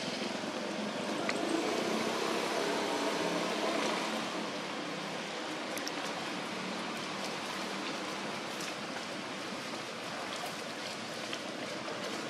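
Steady outdoor background hiss with a few faint clicks.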